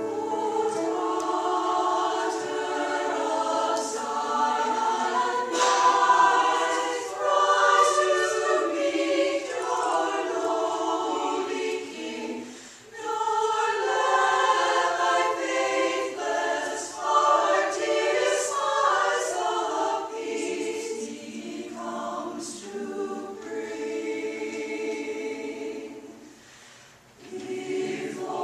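A choir singing a Christmas piece, with a brief break near the end before the voices come back in.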